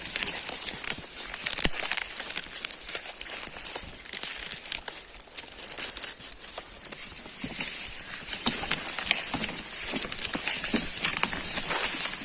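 Irregular crackling and crunching of dry leaves, like movement through dry sugarcane leaves, over a steady high hiss.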